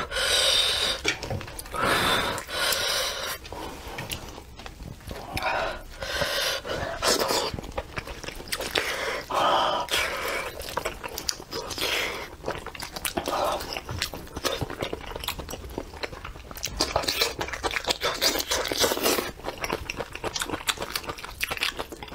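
Close-miked eating of a braised sheep head in spicy sauce: chewing and biting, with wet tearing and sticky clicks as the saucy meat is pulled apart by hand. Sharp clicks come many times, with louder noisy bursts near the start and again near the end.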